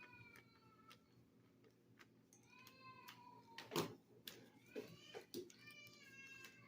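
A cat meowing faintly, several drawn-out, mostly falling meows, mixed with scattered clicks and one sharp knock a little past halfway.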